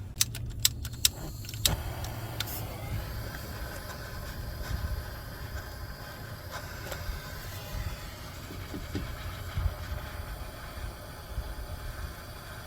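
A quick series of sharp metallic clinks in the first two seconds, then a steady low rumble with a few small knocks.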